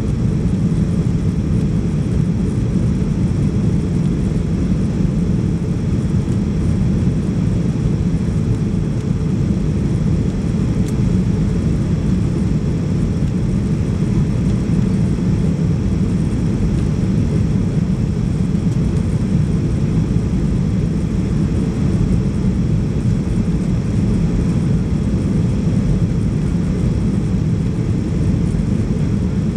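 Steady low rumble of a Boeing 737-800's CFM56 jet engines and rushing airflow, heard inside the passenger cabin while the plane descends on approach.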